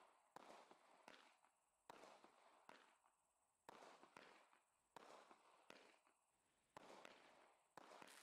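Faint shots and bursts of a 16-shot, 16 mm consumer firework battery (WECO WonderCube) firing, about one a second. Each is a sharp bang that trails off over a fraction of a second.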